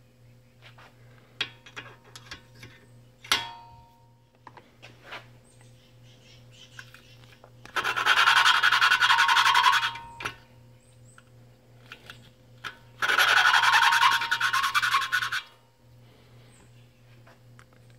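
Briggs & Stratton 7 HP L-head exhaust valve being lapped into its seat with grinding compound: a suction-cup lapping stick spun back and forth between the palms gives two loud gritty grinding bursts of about two seconds each, about eight and thirteen seconds in. A single sharp click with a short ring comes about three seconds in, over a steady low hum.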